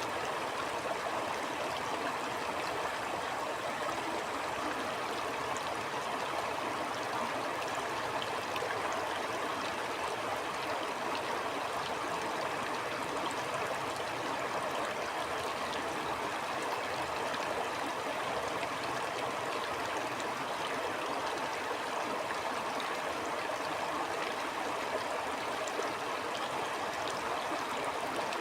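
A stream flowing steadily over rocks, a continuous rushing, burbling wash of water with small splashes scattered through it.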